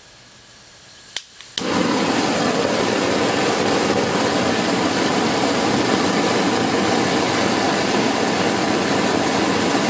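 A click, then a homemade brass propane forge burner lights about a second and a half in and burns with a loud, steady rushing hiss. It is fed at about 3 to 4 psi, on a mixture the builder judges a little off, needing larger air holes.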